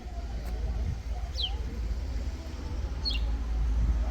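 A small bird calling: two short, high chirps, each falling in pitch, over a steady low rumble.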